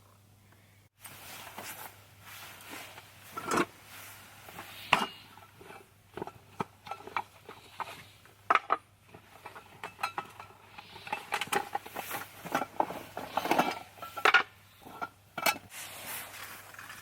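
Irregular clinks and knocks of cookware and utensils being handled, some with a short metallic ring, starting about a second in.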